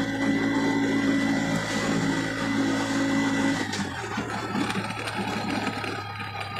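Car engine and road noise from inside the cabin while driving, a steady hum that drops away a little past halfway, leaving a quieter rumble.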